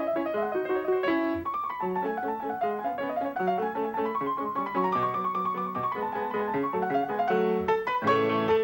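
Solo piano music, a running melody over chords, growing fuller and a little louder near the end, as accompaniment to silent-film footage.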